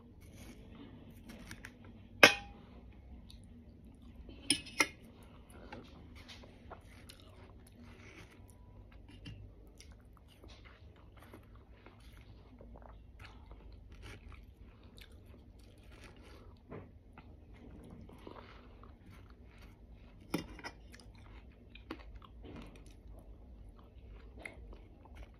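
Close-up chewing of mouthfuls of watermelon, with small wet mouth noises throughout. A few sharp clinks of a fork and knife against a stainless steel bowl stand out: the loudest about 2 seconds in, a quick pair near 5 seconds and another about 20 seconds in.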